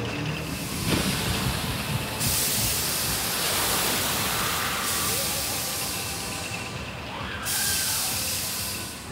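Fog-effect misting nozzles hissing steadily as they spray a mist over the water, the sharper top of the hiss switching on and off a few times.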